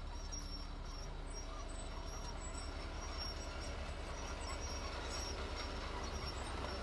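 Heavy diesel construction machinery running steadily with a deep low rumble, with faint short high-pitched squeaks scattered throughout.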